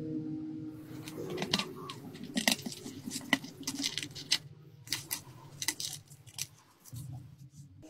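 The dried, brittle seal over the mouth of an earthenware wine jar is being torn and picked away by hand: irregular crackling and crinkling snaps, over a low hum that fades near the end.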